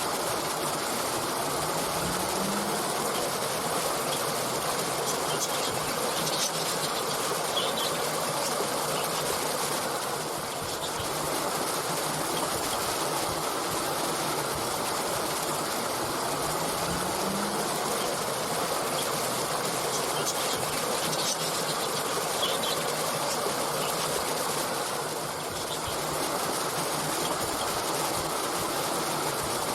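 Stream water flowing with a steady rushing sound, with a few faint, short bird chirps now and then.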